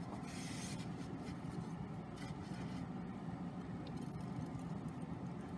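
Faint scraping and rustling as a boiled bagel is pressed and rubbed into a ceramic plate of sesame seeds, with a few brief scratchy strokes.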